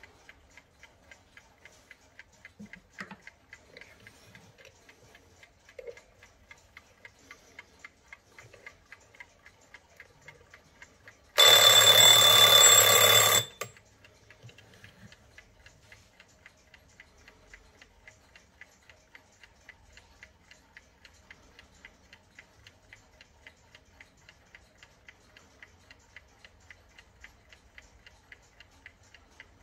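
Vintage Equity wind-up mechanical alarm clock ticking steadily. About a third of the way in, its alarm bell rings loudly for about two seconds and stops, and the ticking carries on.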